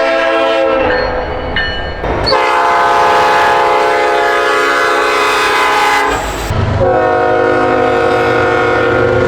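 Diesel locomotive's multi-chime air horn sounding repeated long blasts, a chord of several tones. One blast ends about a second in, a long one follows from about two seconds in, and a third starts near seven seconds, with a low rumble joining under it.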